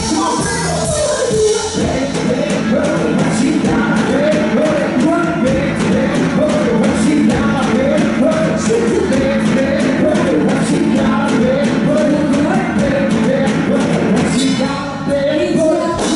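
Live band playing a song with a singer over keyboards, guitar and drums, with a steady beat.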